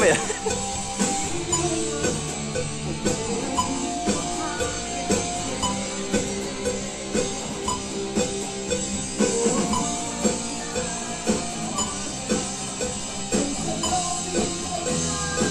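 Band music: guitar over a steady drum beat, about two beats a second.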